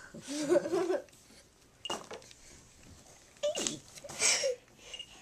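A toddler babbling in short wordless vocal bursts, with a sharp click about two seconds in.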